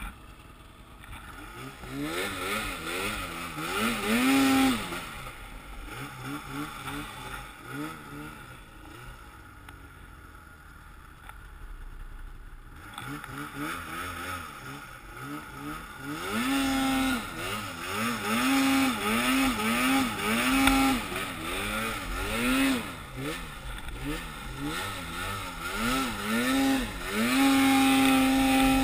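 Arctic Cat ProClimb M800 snowmobile's two-stroke twin engine revved again and again in short blips while the sled sits stuck in deep snow, dropping to a low idle for several seconds about a third of the way in. Near the end the throttle is held wide open in a steady high drone, the kind of pinned running that burns the drive belt.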